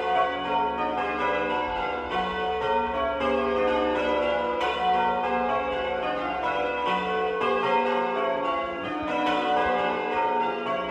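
Change ringing on a ring of eight church bells with a 15 cwt tenor: a continuous stream of overlapping bell strikes, each leaving a long ringing tone.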